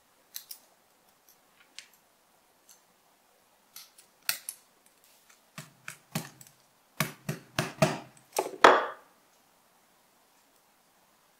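Hammer tapping a small brass hinge part against a flat sheet, about ten sharp taps between four and nine seconds in, the last the loudest. Before them come a few light clicks of small brass parts being handled.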